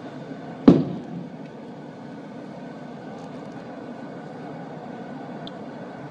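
A single sharp bang about a second in, a police stun grenade going off, followed by steady outdoor street noise.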